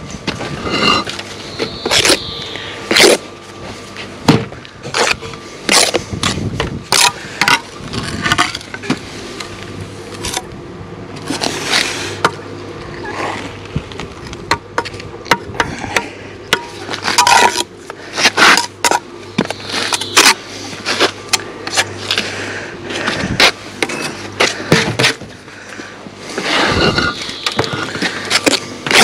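Blocklaying by hand: a steel trowel scraping and chopping sand-and-cement mortar, with concrete blocks knocked down into the bed. It comes as an irregular run of sharp knocks and scrapes.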